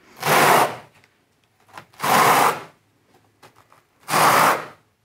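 Steel notched trowel scraping through fresh adhesive mortar on the wall, combing it into ridges: three strokes, each under a second, about two seconds apart.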